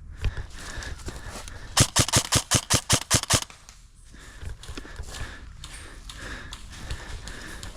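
Airsoft gun firing a quick string of about a dozen shots, roughly seven a second, lasting a second and a half, with movement and rustling of the player around it.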